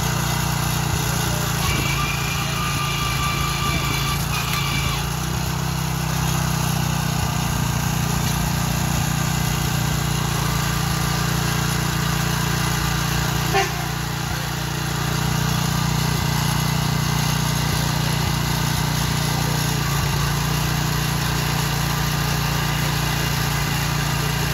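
Small petrol engine of a portable rail track machine running steadily at a constant speed, with a single sharp knock about halfway through.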